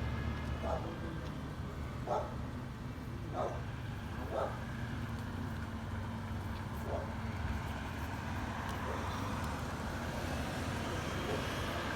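Garbage truck's diesel engine running steadily with a low rumble. Short, sharp sounds come every second or so over the first half.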